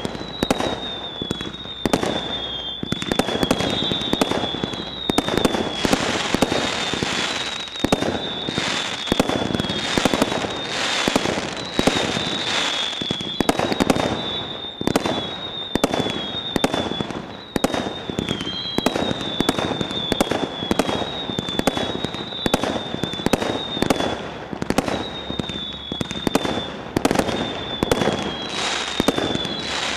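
Stealth Fireworks Dark Angel 100-shot fireworks cake firing shot after shot: a rapid run of launch thumps and shell bangs, with whistling comet tails that each hold a high, slightly falling whistle, and the crackle of crackling peonies.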